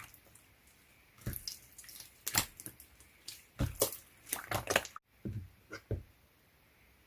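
Slime being squished and pressed by hand, giving irregular sticky clicks and wet pops, starting about a second in.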